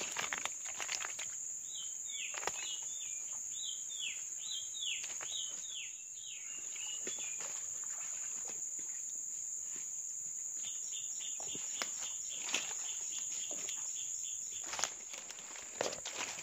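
Steady high-pitched drone of insects in swamp forest, with a run of short falling calls, about two a second, in the first half and a faster steady trill in the second half. Scattered short rustles and knocks come from the fish and the net being handled.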